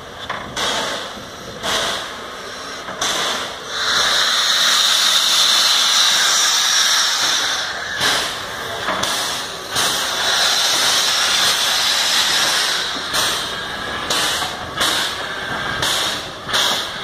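Small steam tank locomotive moving off slowly, with a strong steady hiss of steam venting from its open cylinder drain cocks. Slow exhaust chuffs come about once a second at the start and again near the end.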